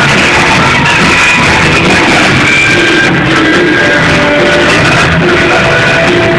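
Loud rock music with electric guitar, played live and picked up by a phone's microphone.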